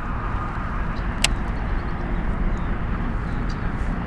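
Steady low outdoor rumble, with one sharp click about a second in and a few faint ticks near the end.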